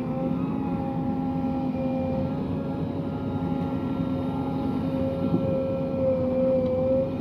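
Heavy diesel engine running steadily at a constant speed, holding one pitch with no revving.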